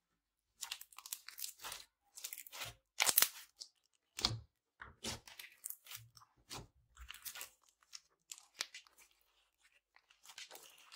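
Slime being squished and kneaded by hand, giving irregular sticky crackles and pops in short bursts with brief pauses between them.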